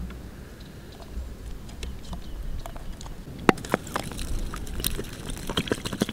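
Scattered sharp clicks and wet crackles from a sea urchin being cleaned out by hand, its shell and spines snapping; they grow denser and louder from about halfway through.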